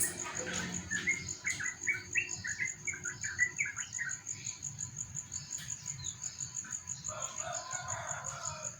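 Sooty-headed bulbul singing. A quick run of short chattering notes starts about a second in and lasts about three seconds, and a lower warbling phrase follows near the end.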